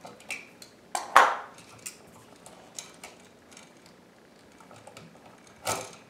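Small metallic clicks and taps of a metal hand tool and a copper wire against an outlet's screw terminal as the wire loop is opened up to slip it off, the sharpest click about a second in and a few more near the end.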